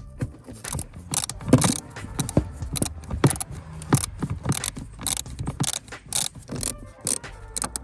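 Irregular metallic clicking and rattling of hand tools and fasteners as a replacement heater blower motor is fitted into its housing.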